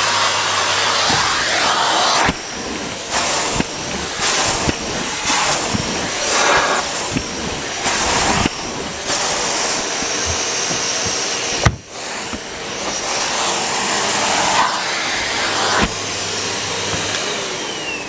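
Numatic Henry 200 cylinder vacuum cleaner running, its floor head pushed back and forth over carpet, the suction noise stepping up and down with the strokes. A sharp knock comes near the middle, with small clicks of the head throughout.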